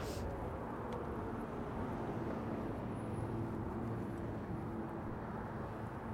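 Outdoor road ambience while cycling: a steady low rumble of road traffic and wind on the microphone, with the faint hum of a vehicle engine in the middle and a few small clicks.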